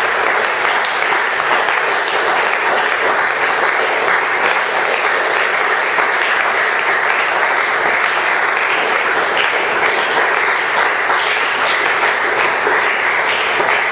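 Congregation applauding, a steady, even clapping that holds at one level and dies away just as it ends.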